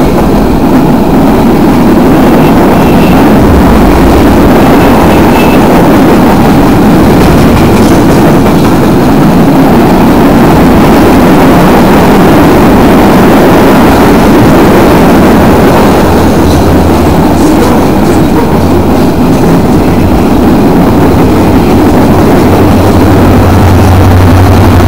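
Loaded freight cars of a Union Pacific manifest train rolling past close by, a steady loud rumble of steel wheels on rail. From about two-thirds of the way in, the low steady drone of a diesel-electric locomotive placed in the train comes in and grows as the unit draws level.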